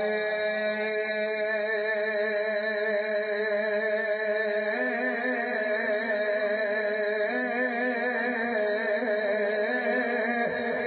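A man's voice chanting Sufi kalam in long drawn-out held notes with a wavering vibrato, moving to a new note a few times.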